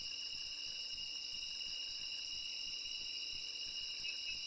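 Steady, high-pitched chorus of night insects, holding constant throughout.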